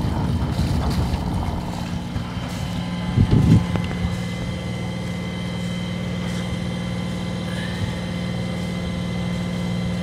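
Sailing yacht's inboard engine running hard and steady, a constant drone, with rushing wind and water noise over it. A brief louder noise comes about three and a half seconds in.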